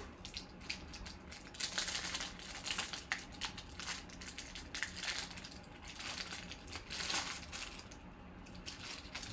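Clear plastic wrapper crinkling and crackling as a pack of trading cards is unwrapped and the card stack handled, in many short rustles throughout.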